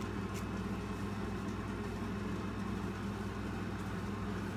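Steady low background hum with no change in pitch or level.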